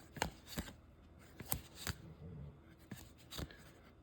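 Trading cards being handled and flipped through one at a time, a series of short, crisp card snaps and slides, about half a dozen over the stretch.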